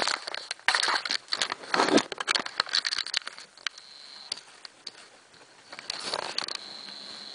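African pygmy hedgehogs moving right against the microphone: irregular rustling and crackling with short snuffling bursts, busiest for the first three seconds, then quieter, picking up again near the end.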